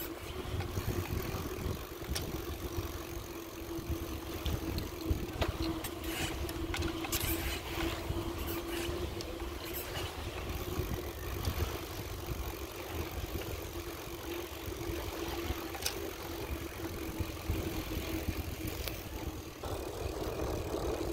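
Wind rumbling on the microphone of a camera carried on a moving bicycle, under a single steady hum, with scattered light clicks and rattles.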